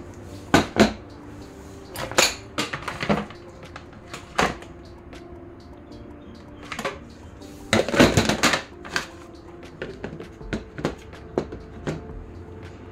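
Plastic food containers, lids and a blender jar knocking and clattering as they are handled and stacked, in irregular knocks with a busier flurry about two-thirds of the way through. Soft background music underneath.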